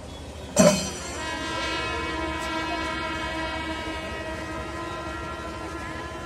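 A sudden loud burst about half a second in, then a steady, horn-like chord of several held tones that runs on over crowd noise.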